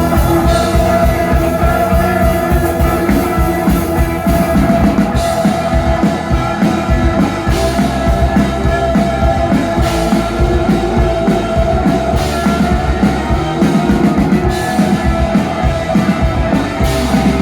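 Rock music with guitar and a drum kit playing a steady beat.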